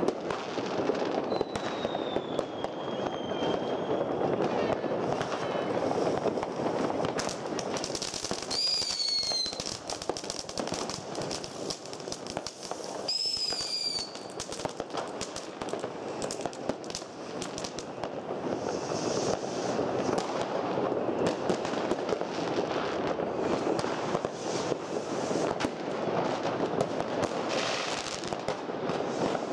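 New Year's Eve fireworks: a dense, continuous barrage of firecracker bangs and crackling rockets. Three whistling fireworks fall in pitch, near the start, about nine seconds in and about thirteen seconds in.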